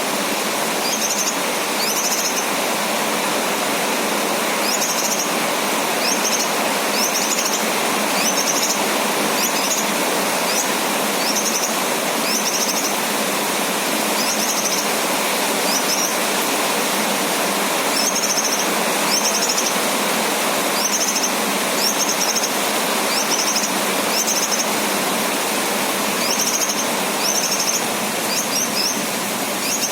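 Male cucak kinoy, a bulbul, repeating short, high chirps, often in quick pairs, about one a second over a steady hiss of rain.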